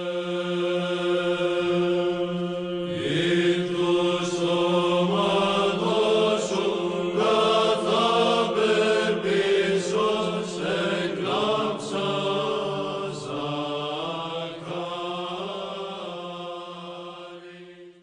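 Chanted vocal music: a steady held drone note with a sung melody coming in over it about three seconds in. It fades out at the end.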